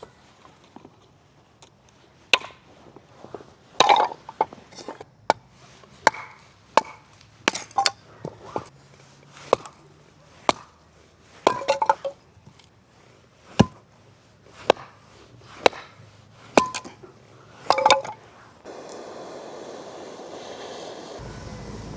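Firewood being chopped: about twenty sharp, irregular strikes, roughly one a second, some with a short ring. Near the end the strikes stop and a steady hiss takes over.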